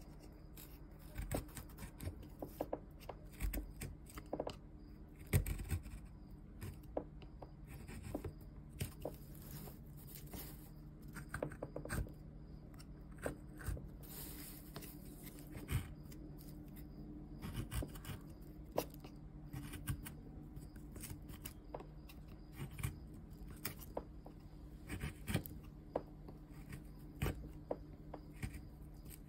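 Hand carving gouge cutting into a woodblock: irregular short scraping cuts with small chip snaps, over a faint steady low hum.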